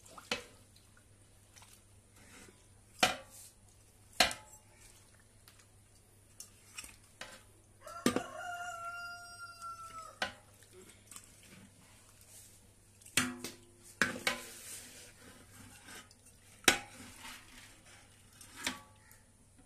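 A metal cooking pot knocked by a utensil stirring the food, a sharp clank every few seconds. About eight seconds in, a rooster crows once for about two seconds.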